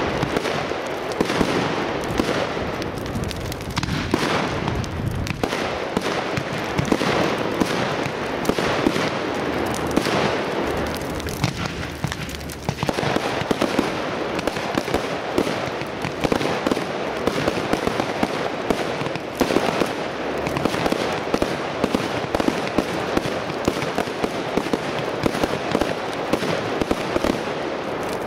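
Professional aerial fireworks: a dense, continuous crackle of many sharp pops and bangs from bursting shells, with a brief lull about twelve seconds in.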